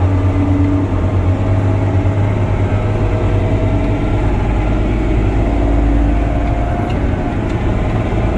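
Off-road dump truck's diesel engine running steadily with a deep drone, heard from inside the cab while the truck drives along.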